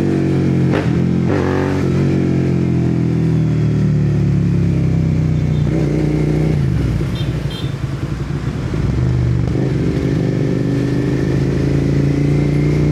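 Suzuki SV650's V-twin engine with an aftermarket exhaust, heard while riding. The engine note falls early on with a couple of sharp cracks, holds steady, dips briefly a little past the middle, then rises slowly as the bike pulls.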